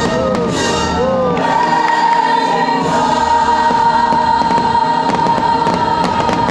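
Fireworks show soundtrack: a choir singing over music, rising into one long held high note about a second and a half in, with firework bangs and crackle scattered over it.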